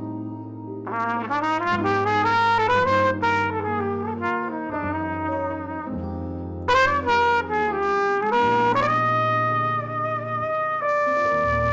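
Instrumental music with a bright, brass-like lead melody: quick runs of rising notes, then longer held notes, over a steady low bass.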